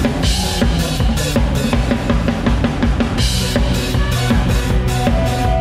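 Drum kit played hard inside a full live band: a steady kick-and-snare groove with cymbal crashes twice, over bass guitar and keyboards.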